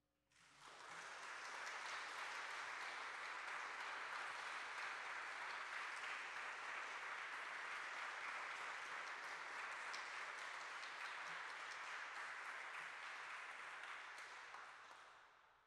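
Audience applauding. It starts suddenly as the music dies away, holds steady, and tapers off near the end.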